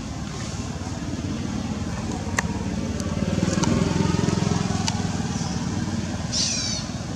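Low rumble of a motor vehicle's engine passing by, swelling about halfway through and then fading. A few sharp clicks come through, and a brief high chirping call sounds near the end.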